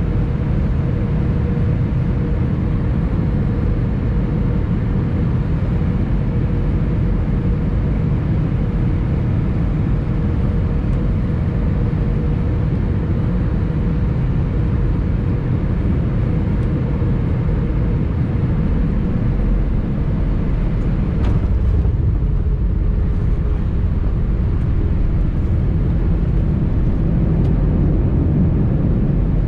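Steady cabin noise inside an Airbus A320-214: a deep rumble of engines and rushing air with a steady hum over it that fades away past the middle, and one brief sharp click about two-thirds of the way through.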